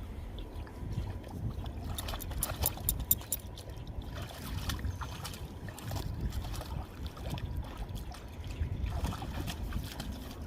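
Water splashing and sloshing as dogs swim and paddle in a pool, with a cluster of sharper splashes about two to three seconds in and again near the end, over a steady low rumble.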